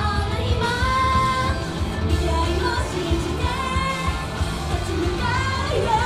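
Upbeat Japanese idol pop song played over a live-house sound system: a woman's voice sings over a backing track with a strong bass.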